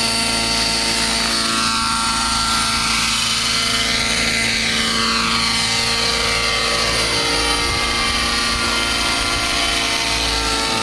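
90-class T-Rex radio-controlled helicopter in flight, its rotors and drive giving a steady, loud whine made of several tones. As it lifts off and moves away, a sweeping swish rises and falls across the sound from about two to seven seconds in.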